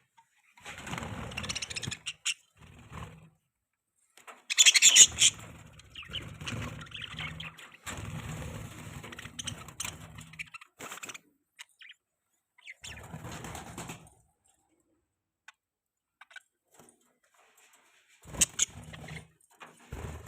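Budgerigars chirping and chattering in several bursts a few seconds long, with silent gaps between them; the loudest burst is about four and a half seconds in.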